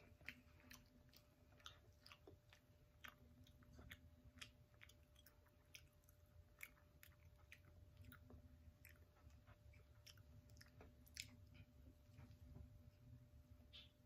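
Faint chewing and biting as a child eats a barbecue-sauced chicken drumstick: many small, irregular clicks.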